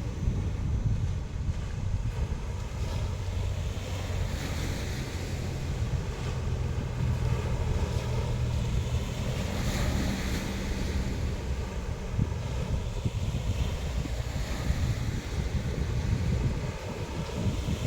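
Sea surf washing in with wind buffeting the microphone, a steady rumbling rush. A wave breaks more brightly about halfway through.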